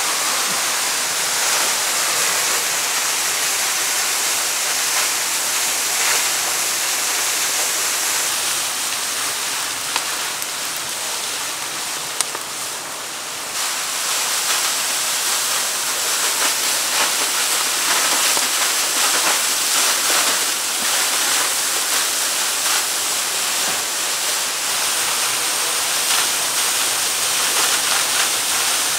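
Steady rushing of a waterfall, an even hiss that eases a little for a few seconds midway, with two brief clicks.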